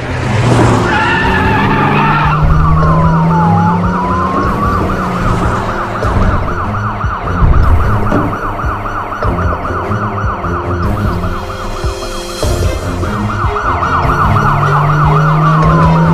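Emergency-vehicle sirens sounding together, a fast repeating warble for most of the time after a slower wavering wail at the start, over a low engine drone.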